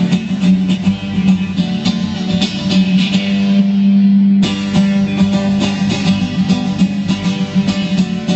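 Live band playing a folk tune, led by fast strummed and picked guitar over a steady low note held underneath.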